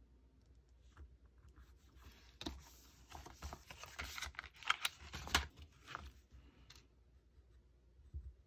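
Wooden coloured pencils clicking and clattering against each other in a cardboard box as the box is handled and a pencil is taken out. It is a quick run of small clicks lasting about four seconds, with the two loudest near the middle.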